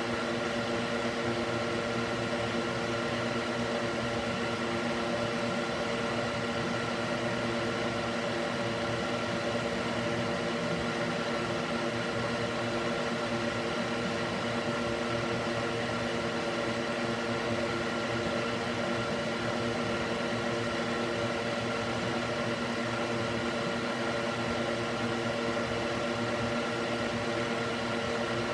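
Electric cooling fan mounted in a wooden box, running steadily: a constant whir with a hum of several steady tones, unchanging throughout.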